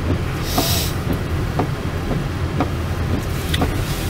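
Car interior while driving on a wet mountain road: a steady low rumble of engine and tyres, with a faint tick about once a second and a brief hiss about half a second in.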